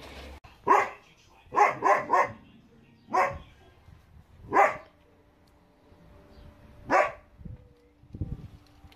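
Young German Shepherd barking: seven sharp single barks, a quick run of three among them about two seconds in, the rest spaced a second or more apart.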